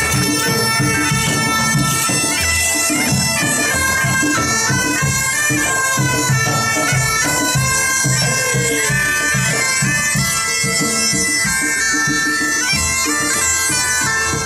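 Several medieval market bagpipes playing a tune together, a stepping melody over steady held drones. The music cuts off suddenly at the very end.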